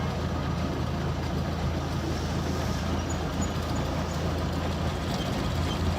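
Rice harvesting machine's engine running steadily with a continuous low drone.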